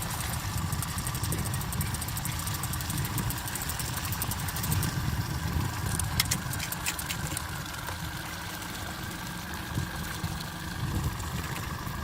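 Boat motor running at trolling speed, a steady low rumble, with a few sharp clicks about six to seven seconds in.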